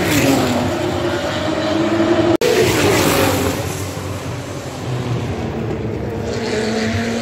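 Racing car engines going past at speed on the straight, a high engine note falling in pitch as a car passes, with a brief break in the sound about two and a half seconds in.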